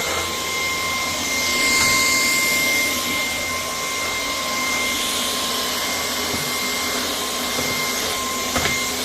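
Cordless stick vacuum cleaner running steadily, its motor giving a constant whine over the rush of air. The hiss swells briefly about two seconds in, and there is a short knock near the end.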